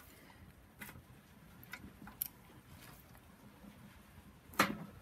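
Faint, scattered metallic clicks and taps of a hand tool against a bare engine's timing end, with one louder, sharper clack near the end.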